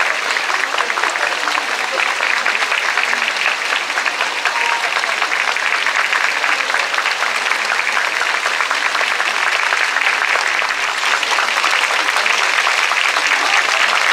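Large crowd applauding steadily, a dense, unbroken patter of many hands clapping, with a few voices mixed in.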